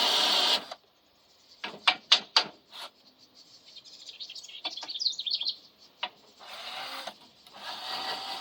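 Electric drill spinning a small wire brush against a rusty carburetor part, stopping abruptly just over half a second in. Several sharp clicks and knocks of the parts and tool being handled follow, then a brief high chirping. A quieter steady whirr comes in about two-thirds of the way through.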